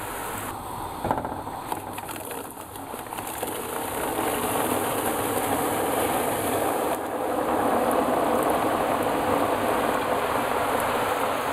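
Hot oil sizzling as small squares of struffoli dough deep-fry in a tall aluminium pot, with a few light knocks near the start. The sizzle grows louder and denser partway through as a fresh batch of floured dough pieces is tipped into the oil.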